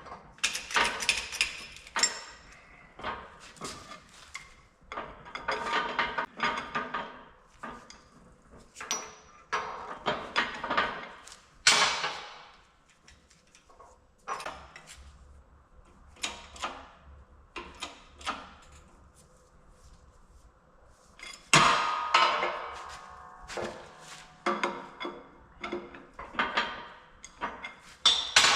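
Metal parts and tools being handled at a workbench: irregular clanks, knocks and scraping while a spacer ring is fitted onto the axle shaft's seal surface and pressed on. A sharp metallic clank that rings briefly, the loudest sound, comes a little over two-thirds of the way through.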